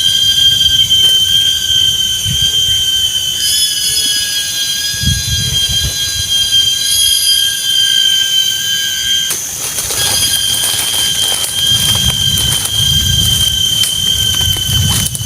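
Chorus of forest insects: a steady, high-pitched drone of several layered tones, whose pitch pattern shifts about three seconds in and again about nine seconds in, with low rumbling underneath at times.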